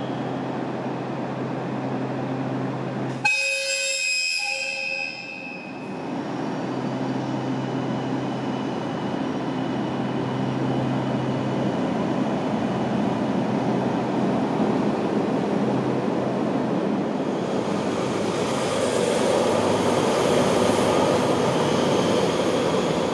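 A train horn sounds for about two and a half seconds a few seconds in, over the hum of the Furano–Biei Norokko train's DE15 diesel locomotive. The train then pulls out, and its running noise grows louder toward the end.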